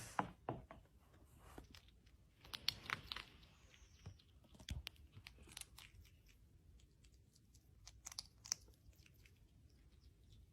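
Faint, irregular crunches and clicks, as of small bites being chewed, clustered in two spells: a few seconds in and again near the end.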